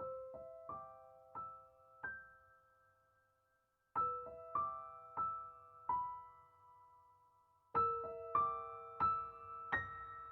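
Soft background piano music: three short phrases of single notes, each note fading out, starting about four seconds apart.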